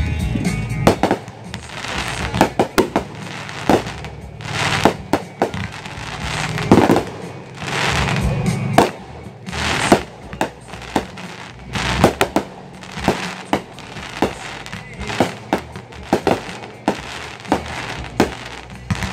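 Aerial fireworks shells launching and bursting, dozens of sharp reports, some in quick clusters, with crackling between them.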